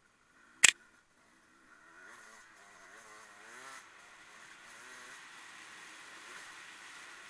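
A single sharp click under a second in. After it comes a racing motorcycle engine, faint and distant, revving up and down over a steady hiss.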